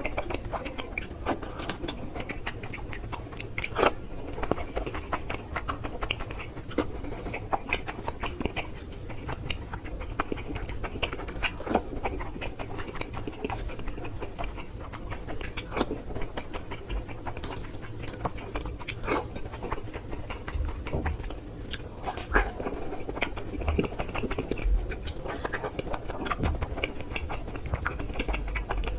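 Close-up sounds of a person chewing and eating rasgulla: wet chewing with many small, irregular mouth clicks, a few of them sharper and louder, over a low steady hum.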